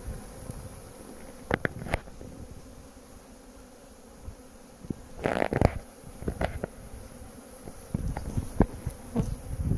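Honeybees buzzing over an open, crowded hive, with several short knocks and scrapes of a metal hive tool levering wooden frames apart; the loudest is a longer grating scrape about halfway through.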